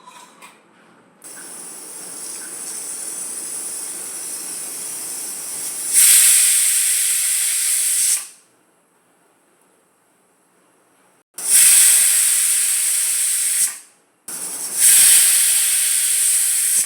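Stovetop pressure cooker coming up to pressure: a steam hiss builds, then the weight lifts and it whistles three times, each blast lasting about two seconds. The whistles count toward the five whistles that cook the wheat rava porridge.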